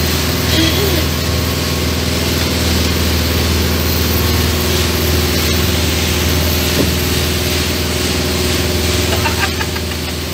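River ferry's engine running with a steady low drone, heard inside the enclosed passenger cabin.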